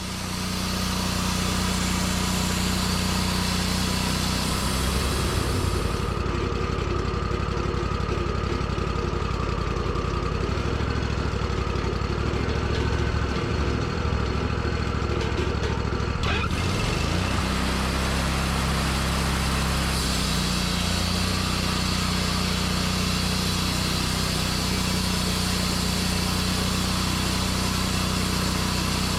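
Sawmill engine running steadily as the mill saws a pine cant into boards.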